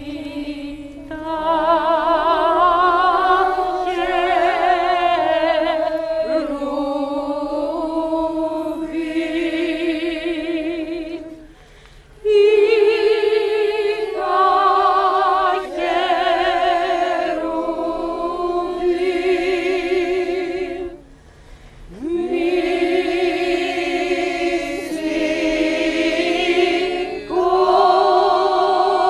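Women's choir singing a cappella in long held phrases with vibrato, pausing briefly about twelve seconds in and again about twenty-one seconds in.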